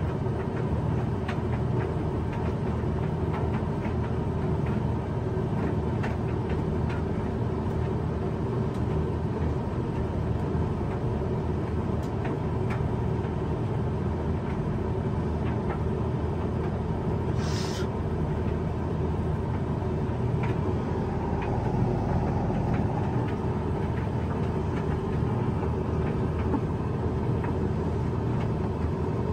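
Hoover tumble dryer running a sensor-drying cycle with a load of bathrobes: a steady rumble of the turning drum over a motor and fan hum, with faint scattered ticks from the tumbling load. A short hiss comes about eighteen seconds in.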